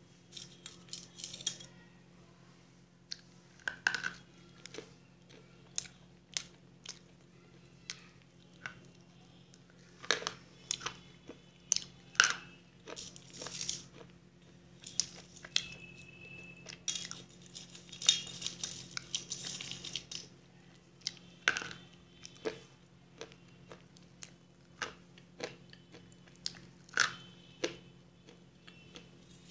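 Close biting and chewing of dry clay and chalk pieces: sharp, crisp snaps come every second or two, with a few longer stretches of gritty crunching. A steady low hum runs underneath.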